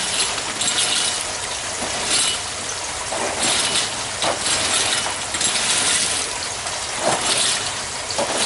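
Red lava rocks clinking and grating against each other as they are dug out of an aquaponics grow bed, in short bursts every second or so, over the steady splash of water pouring from a PVC pipe outlet into the bed.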